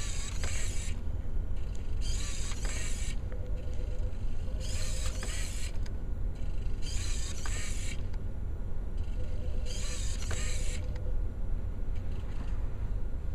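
The robot's hobby servos, modified for continuous rotation, whirring through their gears in five short bursts under a second each, about two seconds apart, as it drives across the whiteboard in stops and starts. A steady low rumble runs underneath.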